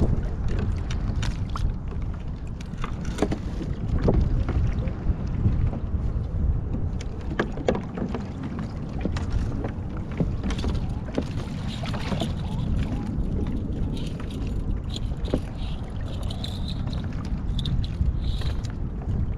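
Wind on the microphone and water lapping against a plastic kayak hull at sea: a steady low rumble with scattered small knocks and splashes.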